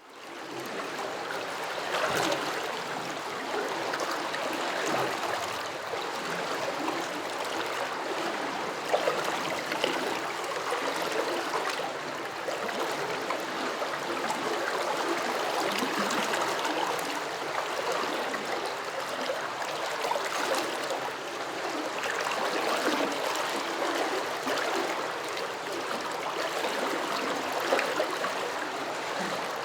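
Shallow stream of water flowing steadily over stones, rippling and gurgling with small irregular bubbling splashes, after a short fade-in at the start.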